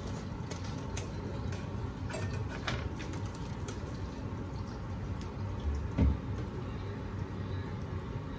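Kitchen handling sounds: a plastic bag of scallops being handled and tipped over a glass bowl, with a few light clicks in the first three seconds and one dull thump about six seconds in.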